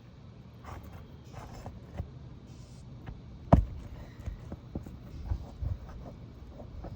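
Scraping and knocking of a roofing tool prying under asphalt shingles to break their seal, with one sharp knock about halfway through.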